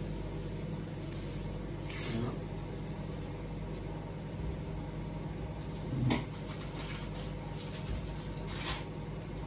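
Kitchen handling noises over a steady low hum: the sugar bag rustles about two seconds in, a single knock comes about six seconds in, and another rustle follows near the end.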